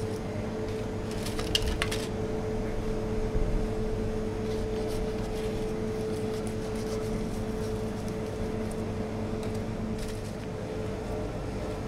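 A steady appliance hum with a constant tone, and a few light clicks about one and a half to two seconds in as aluminium tart tins and pastry are handled on the counter.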